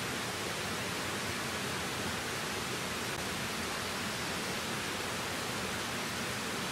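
Small shallow stream running over stones, a steady, even rush of water.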